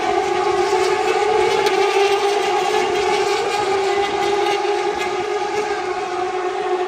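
A pack of carburetted Turismo Carretera race cars running at high revs, their many engines merging into one steady drone.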